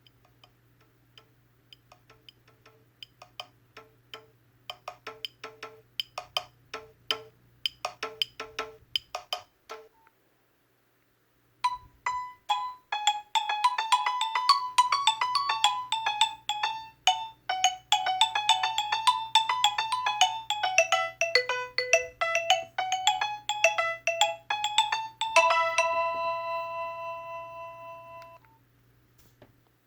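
Two Nokia 5300 XpressMusic ringtones play one after the other from the phone's speaker. The first is a run of short, spaced notes that grows steadily louder and stops about nine seconds in. After a short pause comes a busier, faster melody that fades out near the end.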